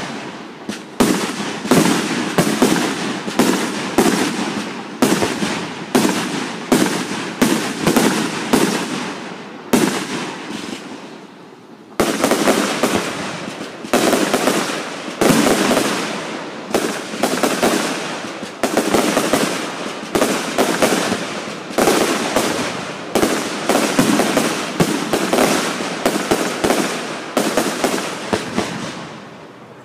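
Aerial fireworks going off in quick succession, about two sharp bangs a second, with a lull of about two seconds some ten seconds in before the bangs resume.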